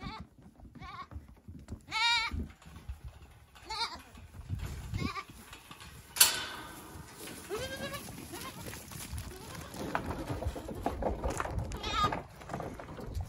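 Goat kids bleating again and again, short quavering cries from several animals, the loudest about two seconds in. A single sharp knock sounds about six seconds in.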